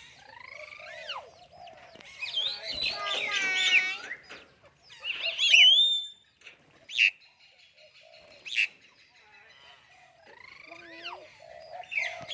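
Myna birds calling in a varied mix of whistles, rising and falling glides and sharp clicks, with a harsh, buzzy call about two to four seconds in.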